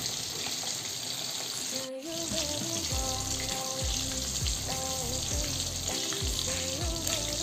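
Pieces of masala-coated kingfish deep-frying in a kadai of hot oil, sizzling steadily. Background music with held, stepping notes comes in about two seconds in.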